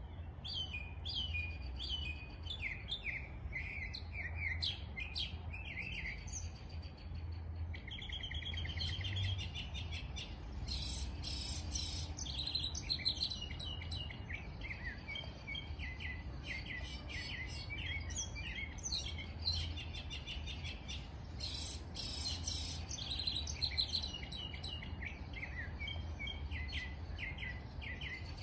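A chorus of several wild birds chirping and trilling, with many quick high calls overlapping. A low steady rumble runs underneath.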